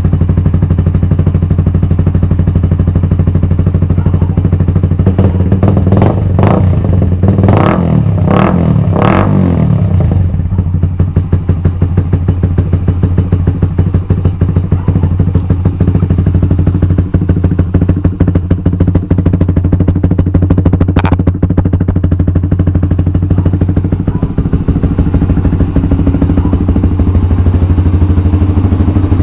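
Honda CBR150R's single-cylinder engine running loud through a Yoshimura Alpha carbon full-system exhaust with its dB killer removed. It is blipped four times in quick succession about six to nine seconds in, then settles back to a steady idle.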